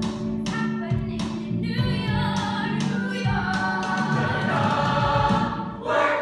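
A choir singing a musical-theatre song together over a rhythmic accompaniment, with a brief drop and a strong vocal entry near the end.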